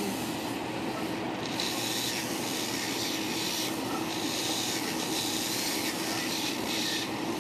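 Electric nail file running against an acrylic nail: a steady motor hum with a rasping grind that swells and eases every second or so as the bit is pressed to the nail and lifted.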